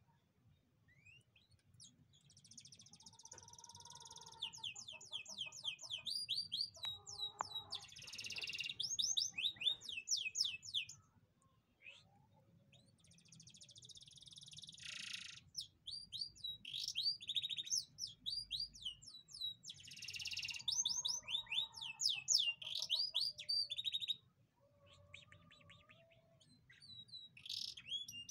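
Domestic canary singing: long bouts of rapid, high repeated notes and trills, two bouts of several seconds each with a short pause between, and a third starting near the end, with some lower notes mixed in.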